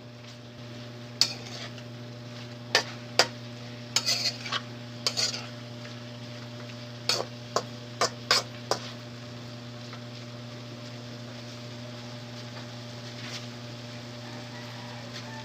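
Metal utensil scraping and knocking against a pan as pork innards for paklay are stirred while frying, with a faint sizzle. About a dozen sharp strokes come in the first nine seconds, then only a soft sizzle over a steady low hum.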